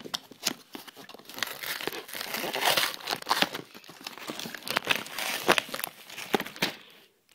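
Packaging being crinkled and torn open by hand as a toy blaster's stock is unwrapped: a dense run of rustling and sharp crackles that stops shortly before the end.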